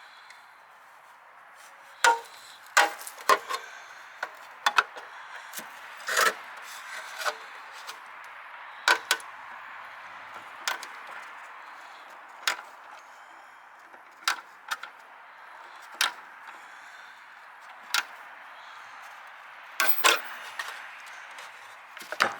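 Irregular sharp clicks and knocks from hand-tool work, about twenty spread unevenly, over a steady background hiss.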